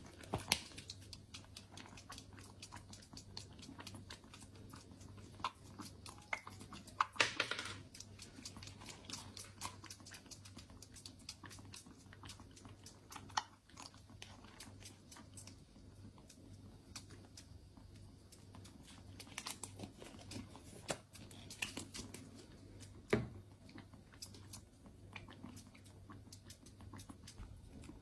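Kittens eating: many faint, scattered chewing and crunching clicks, with a few louder knocks.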